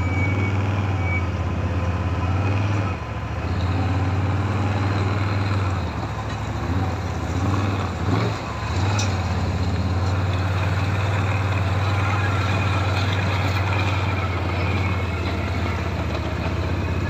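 ATV engine running steadily at a low drone while riding a rough dirt track, easing off briefly about three seconds in and again for a couple of seconds near the middle.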